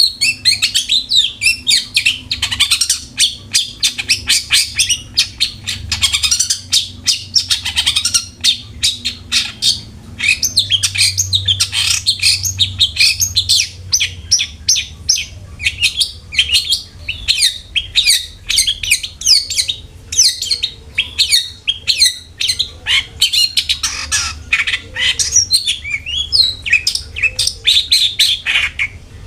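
Long-tailed shrike (cendet) singing: a fast, unbroken stream of sharp chips, short trills and harsh chatter.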